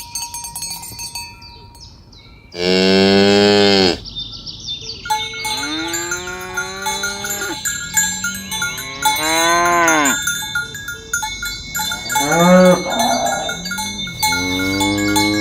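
Cattle mooing again and again: about five long calls that rise and fall in pitch, the loudest about three seconds in. Bells on the cows ring and clink throughout.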